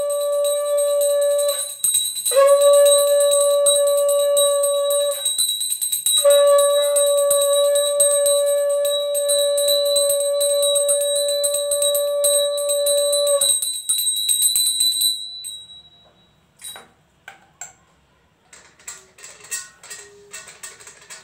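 A conch shell blown in three long blasts, the last the longest, over a small brass hand bell rung steadily. Both stop about two-thirds of the way in, leaving only scattered light clicks and knocks.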